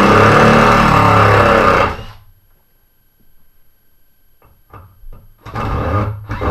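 Power drill running, backing a screw out of the wall for about three seconds. A few light clicks follow, then a second shorter run near the end.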